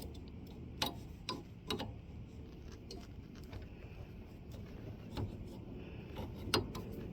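A few sparse, light clicks and knocks, spaced irregularly, from hand work on the lawn tractor's metal parts as a damaged part is worked loose.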